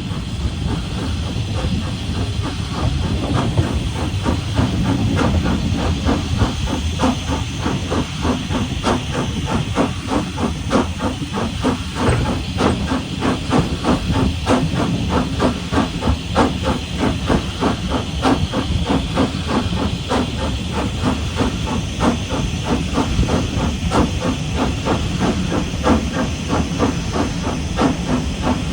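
Southern Railway Schools Class three-cylinder 4-4-0 steam locomotive working hard, with rapid, even exhaust beats over a steady hiss of steam.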